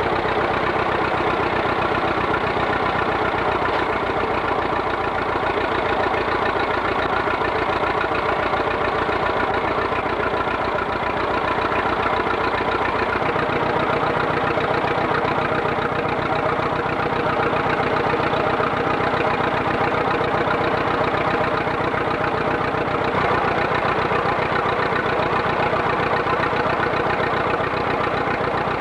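Vintage tractor engine idling steadily, an even run of firing pulses; the low end of the sound changes about 13 seconds in.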